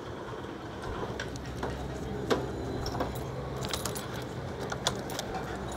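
Motorcycle at a standstill with a low, steady hum under it, and scattered light metallic clicks and jingles, the clearest about two seconds in.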